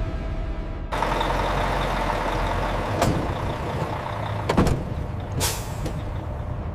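Heavy processing machinery running, with a couple of sharp knocks and a short hiss of air about two-thirds of the way through.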